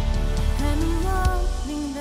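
Worship band playing, with drums, electric guitar and keys; a female vocalist starts singing a slow melody line about half a second in. Near the end the drums and low end drop away, leaving the voice over a thinner backing.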